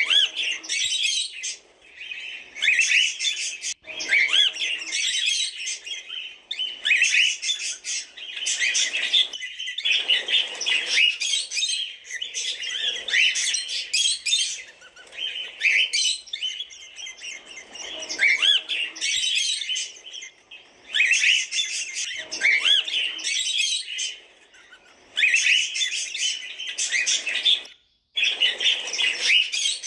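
Cockatiels chirping and squawking in dense, overlapping bouts, broken every few seconds by short pauses.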